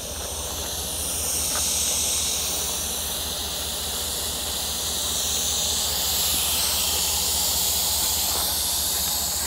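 Air hissing steadily out of a pickup truck's tire through an automatic tire deflator screwed onto the valve stem, letting the tire down to about 18 psi for off-road driving. A low steady hum runs underneath.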